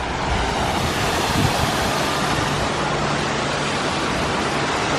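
Falling water from a waterfall or water feature, a steady rush that builds up and holds.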